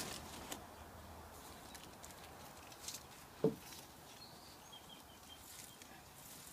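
Quiet rustling and brushing of hands smoothing and patting potting soil level in a plastic plug tray, with one short knock about three and a half seconds in.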